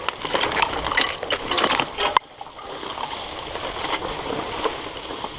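Surly Moonlander fat bike riding through wet, overgrown trail: crackling of tyres and brush with some splashing. About two seconds in it drops suddenly to a steadier, quieter rolling noise.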